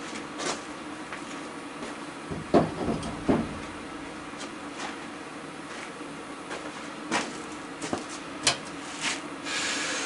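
Scattered knocks and clatter of tools and metal being handled in a workshop, with a cluster of several knocks a few seconds in and single ones later, over a steady low hum.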